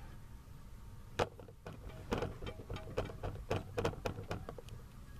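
A sharp click about a second in, then a run of irregular clicks and taps for a couple of seconds, over a low steady hum.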